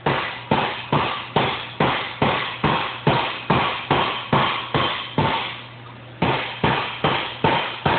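Hand hammer blows on the steel edge of a Model A sedan quarter panel, struck with the flatter face of a shrinking hammer to shrink the flange. The blows fall about two and a half a second, each ringing briefly, with a short pause about five and a half seconds in.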